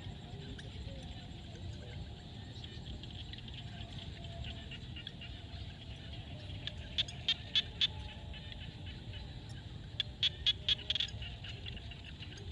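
Frogs calling in a field at dusk: a faint steady chorus, broken twice by a quick run of five or six sharp clicking calls, about halfway through and again near the end, over a steady low rumble.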